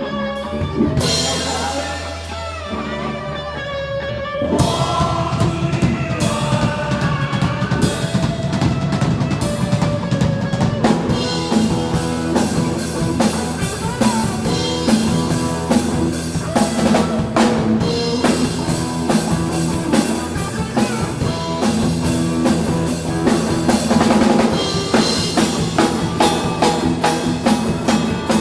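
Live rock band playing, with the drum kit prominent: bass drum and regular drum hits driving the beat under the band. The first few seconds hold a quieter sustained passage, and the full band with drums comes in hard about four seconds in.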